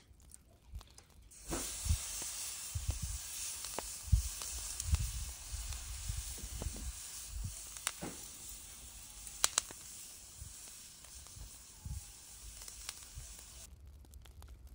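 Lamb chops and boerewors sizzling on a braai grid over hot coals. The sizzle starts suddenly as the meat goes down, with scattered sharp pops and soft low thumps, and it cuts off abruptly near the end.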